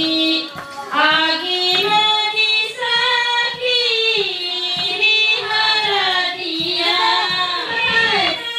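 A high-pitched voice singing a folk melody, with long held notes that glide up and down.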